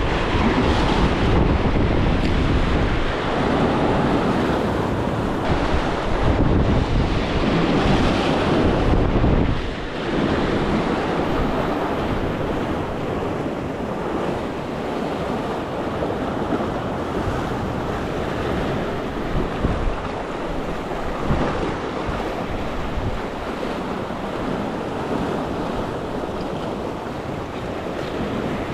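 Sea waves washing against the shore, with wind buffeting the microphone, heaviest for about the first ten seconds and then easing off.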